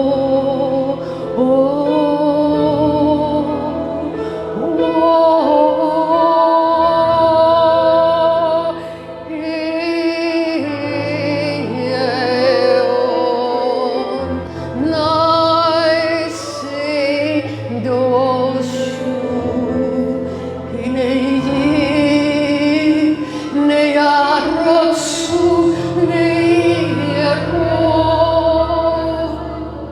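Slow live worship music: a woman singing a wavering, held melody over sustained low notes.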